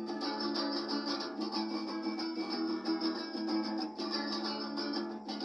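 Acoustic guitar strummed in a quick, even rhythm, chords ringing, with no voice.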